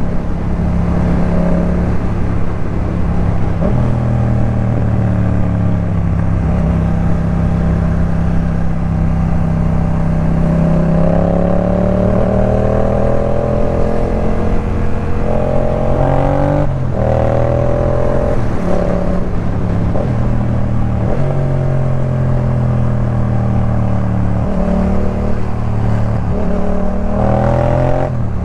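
Yamaha MT-07's parallel-twin engine through a Jeskap K4 full exhaust system, riding under load. The engine note climbs steadily as the bike accelerates, then drops sharply at each gear change, several times over.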